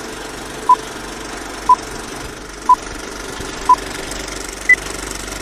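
Film-leader countdown sound effect: a short beep once a second, four at one pitch and a last, higher beep near the end, over the steady running noise of a film projector.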